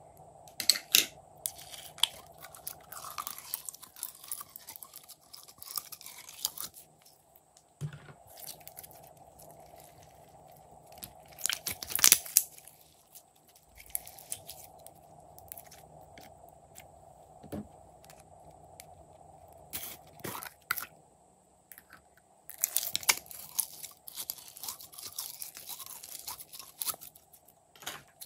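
Hands squeezing, pressing and stretching glittery slime, making sticky clicks and crackles in irregular bursts. The loudest burst comes about twelve seconds in, and a long crackly stretch comes near the end.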